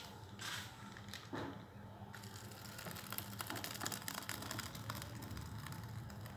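Thick sago milk pudding (sabudana kheer) sliding out of a tilted metal pot into a ceramic bowl, a faint wet crackling that thickens from about two seconds in. There are a couple of brief scrapes of the pot near the start.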